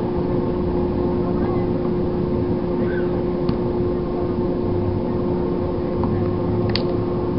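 Boat motor running at a steady speed, an even hum that holds one pitch, with a short sharp click near the end.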